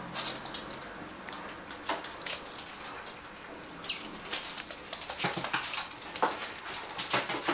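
Prairie dogs' claws clicking and scratching on a wooden floor as one lunges at the other and they scramble about. The clicks are sparse at first and grow quick and busy from about four seconds in.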